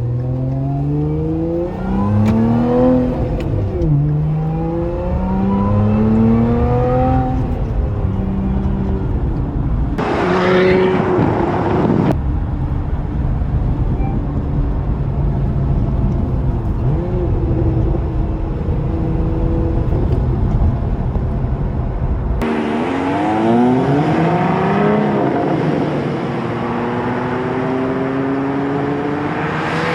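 Lotus Emira's supercharged 3.5-litre V6 in track mode, accelerating hard through the gears of its manual gearbox. The pitch rises and drops at each upshift, the engine settles into steadier running in the middle, and near the end it pulls up through the gears again.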